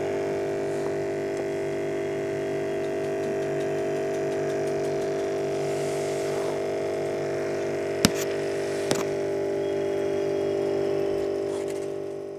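Aquarium pump motor humming steadily, a steady tone with no change in pitch. Two sharp clicks about eight and nine seconds in, and the hum fades out at the end.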